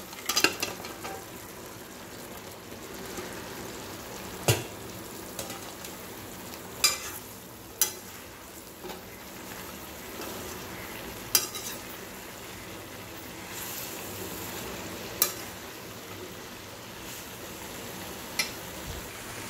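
Cauliflower florets cooking in a wet masala gravy in a steel kadai, a steady sizzle, while a perforated stainless-steel ladle stirs them, clinking sharply against the pan about seven times.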